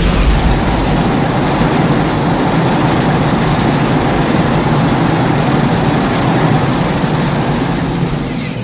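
A loud, steady rushing noise with no clear pitch, starting to fade away at the very end.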